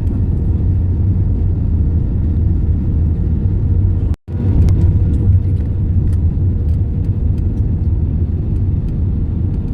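Steady low rumble of a jet airliner heard from inside the passenger cabin during landing. The sound cuts out completely for an instant about four seconds in.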